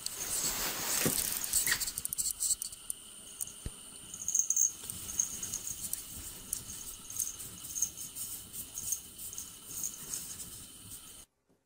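Cat scratching and pawing at a wall of packed snow: an uneven run of light, crisp scraping and crunching ticks that cuts off abruptly near the end.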